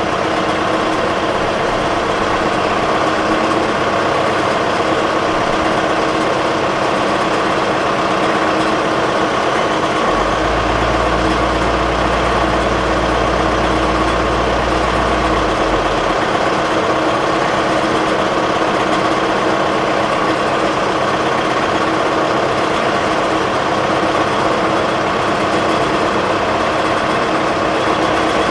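Diesel truck engine idling steadily at tickover. A deeper low hum joins for about five seconds near the middle.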